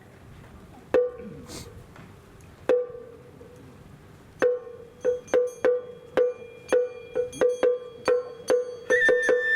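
Wooden clappers (hyōshigi) struck with a sharp, ringing clack: two single strikes a couple of seconds apart, then strikes speeding up into a rapid run, the signal that opens the festival hayashi. Near the end a high held note comes in as the music starts.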